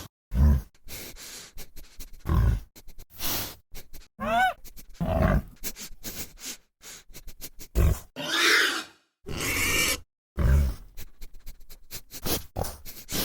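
Wild boar calls: short, low grunts repeating every second or two, broken by a rising squeal about four seconds in and a longer, harsh squeal about eight seconds in.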